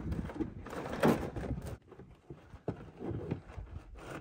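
Plastic hull of a Tucktec folding kayak being folded into shape by hand: irregular knocks, clunks and scraping of the plastic sheet, loudest about a second in.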